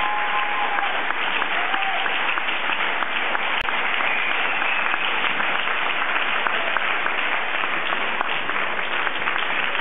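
Audience applauding steadily in a hall, with a split-second gap about a third of the way in.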